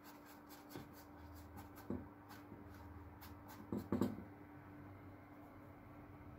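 Bristle brush stroking and dabbing oil paint onto a canvas: a series of short strokes over the first four seconds, the loudest around four seconds in, then the strokes stop. A faint steady hum runs underneath.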